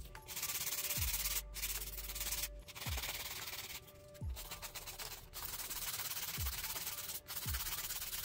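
Nail file rubbing over hardened polygel nails: a scratchy filing noise in strokes of about a second, with short breaks between them.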